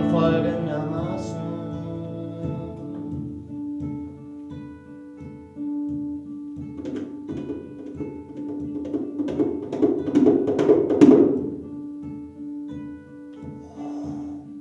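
Acoustic guitar laid flat across the lap and tapped and played on its body over a long held note, making soft regular knocks. About seven seconds in the knocks and strums grow louder and busier, then ease back to the held note near the end.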